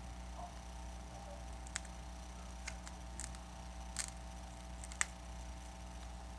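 Scattered light clicks and snaps of plastic pry tools and guitar picks against a Samsung Galaxy S5's frame as its glued screen is pried loose. About six irregular clicks, the sharpest about five seconds in, over a steady low hum.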